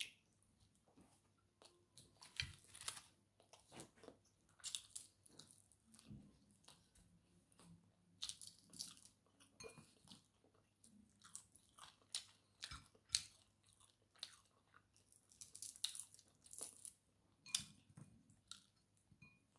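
Close-miked chewing of rice and fried fish eaten by hand: irregular wet mouth clicks, smacks and light crunches, several a second, in short runs with brief pauses between.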